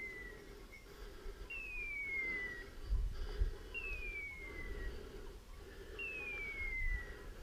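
A hunting dog's electronic beeper collar sounding a clean, whistle-like beep that falls in pitch over about a second and repeats about every two seconds. Low bumps from the wearer's movement can be heard under it, strongest about three seconds in.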